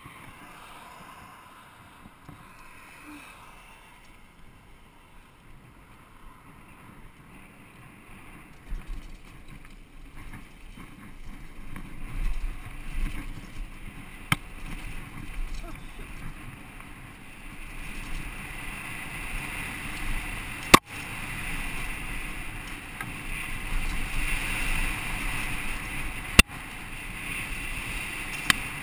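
Riding noise from a Giant Glory downhill mountain bike on a dirt trail, heard from a helmet camera: wind on the microphone and tyres rumbling over dirt and rocks, getting louder from about eight seconds in. A few sharp, single clicks or knocks stand out, the loudest a little past the two-thirds mark.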